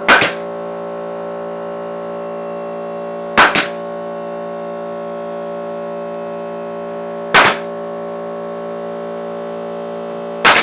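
Pneumatic nail gun firing nails into wooden boards: four sharp shots about three and a half seconds apart, two of them a quick double, over the steady hum of a running air compressor.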